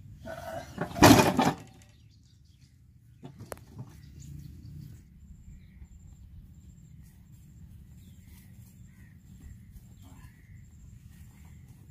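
A loud, short knock and rustle about a second in, then quiet open-field ambience with faint bird chirps and a high, repeated pipping call.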